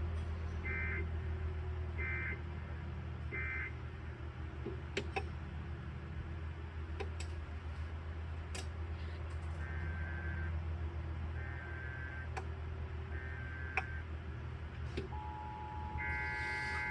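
Three short bursts of Emergency Alert System data tones, about a second and a bit apart: the end-of-message code closing the severe thunderstorm warning. After a pause comes a fainter second set of three from another relaying source, over a low hum with a few scattered clicks. Near the end a steady tone starts and another burst of data tones begins.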